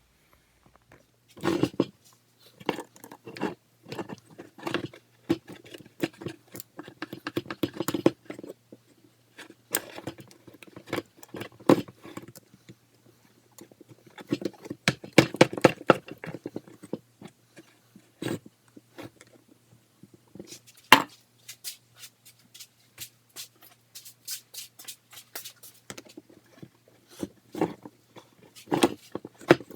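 Fuel hoses and their clamps being worked off a pair of Sea-Doo GTX carburetors by hand: irregular clicks, taps and scraping of small metal parts and tools. A faint steady low hum runs underneath.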